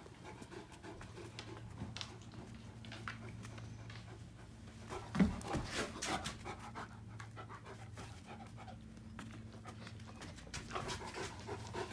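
Great Danes panting during rough play, an adult and a young puppy, with scuffles and short clicks from their bodies and paws on the rug. The activity is busiest around the middle, over a steady low hum.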